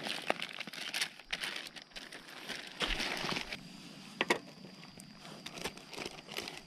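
Clear plastic zip-lock bag crinkling in bursts as it is handled, with a few sharp clicks.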